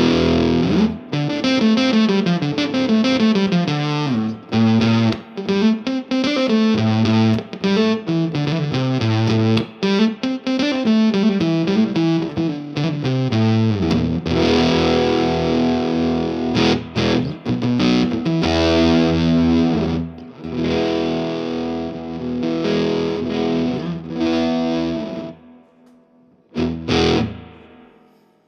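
Electric guitar overdriven through the SwinDrive overdrive pedal (switched on), a Gretsch 6118T into a Vox AC15 amp. It plays fast single-note runs for about the first half, then strummed, sustained chords that ring out and fade away near the end.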